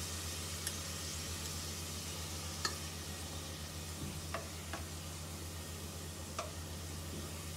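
Beef mince frying in oil in a pressure cooker, a steady low sizzle, while a steel ladle stirs in ginger-garlic paste and clinks against the pot about five times.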